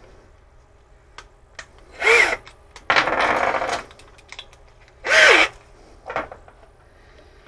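Power drill run in short trigger bursts: two quick spins that fall in pitch as they wind down, and one held for about a second, with a few light clicks and knocks in between.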